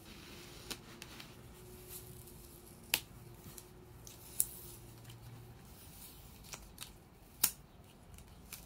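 Black tape being peeled off a plastic specimen pot by hand, with a few sharp snaps as it pulls free.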